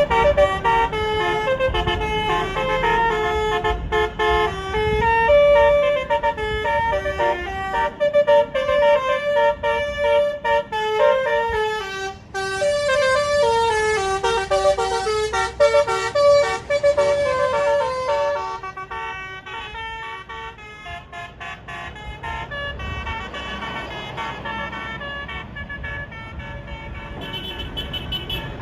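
Bus telolet basuri horn: a multi-tone air horn playing a melody of quick stepped notes. It is loud for about eighteen seconds, then continues more faintly.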